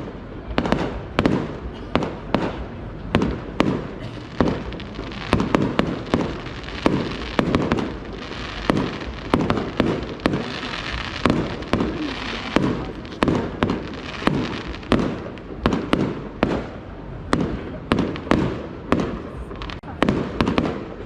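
Fireworks display: aerial shells bursting in quick succession, about two bangs a second, each with a low rumble. A stretch of crackling hiss comes about halfway through.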